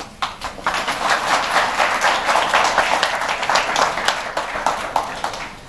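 Audience applauding, a dense run of hand claps that starts just after the beginning and stops just before the end.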